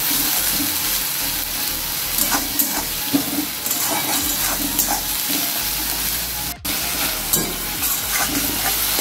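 Onions and onion paste frying in oil in a metal kadai: a steady sizzle, with a flat metal spatula stirring and scraping against the pan in repeated strokes. The sound cuts out for an instant about two-thirds of the way in.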